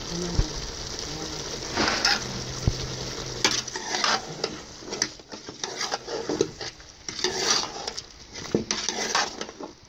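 Metal spoon stirring cubes of mutton liver and tomato in a metal pot, scraping against the pot in a series of separate strokes while the wet contents sizzle.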